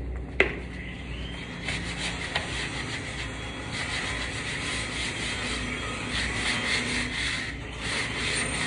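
Wood being sanded, a steady scraping rub, with a sharp click about half a second in.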